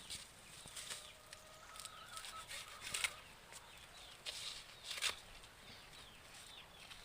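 Faint, repeated high chirps of small birds, each a short falling note, with scattered sharp clicks and rustles.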